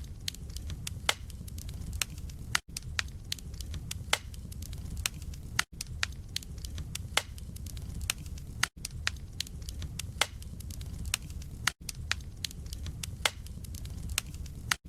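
Wood fire burning in a fireplace: logs crackling and popping in sharp irregular snaps over a steady low rumble of the flames. Very short dropouts break it about every three seconds.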